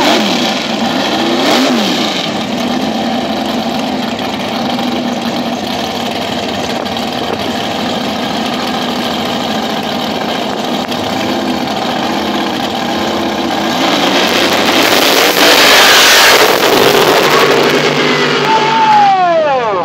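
Sand drag race car engines idling and blipping at the starting line, then, about fourteen seconds in, a loud launch at full throttle that lasts a few seconds. The engine note drops in pitch near the end as the cars run away down the track.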